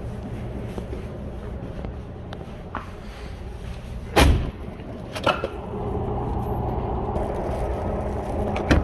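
Vehicle engine running steadily, with a loud door-like thud about four seconds in and lighter knocks about a second later and near the end.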